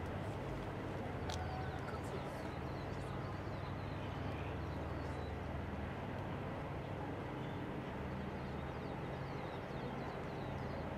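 Steady outdoor background: a constant low rumble and hiss, with faint, scattered high bird chirps.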